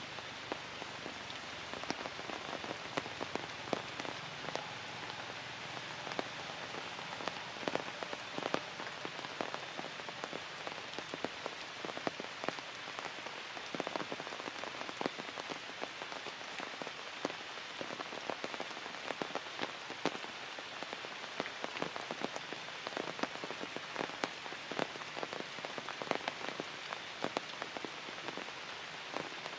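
Steady rain falling on forest foliage: an even hiss with many sharp drop impacts ticking through it.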